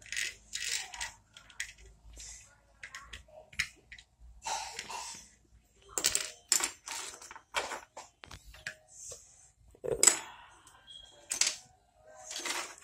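Lego bricks being handled, small hard plastic pieces clattering and clicking in short bursts every second or so, the loudest about ten seconds in.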